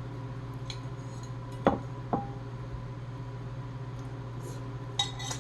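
A few sharp clinks and cracks from eating: dishware and shellfish shells, the loudest about one and a half seconds in, another just after two seconds with a short ring, and one near the end, over a steady low hum.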